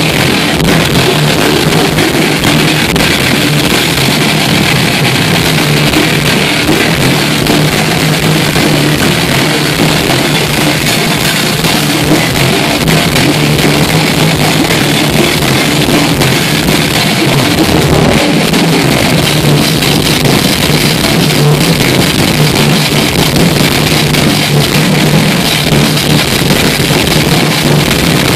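Death metal band playing live and loud: distorted electric guitars, bass and drums in a dense, unbroken wall of sound, recorded from the crowd.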